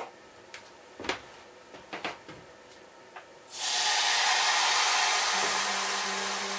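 A few light knocks of cookware, then about three and a half seconds in a sudden loud hiss of steam from a hot cooking pot that carries on and slowly fades.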